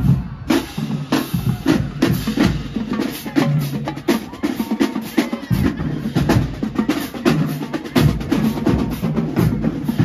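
Marching band drumline playing a cadence while marching, snare drums and bass drums striking in a steady rhythm.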